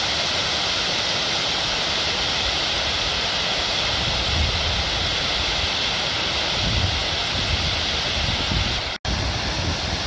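Waterfall spilling over a wide stone ledge into a pool: a steady rush of falling water, broken by a momentary dropout about nine seconds in.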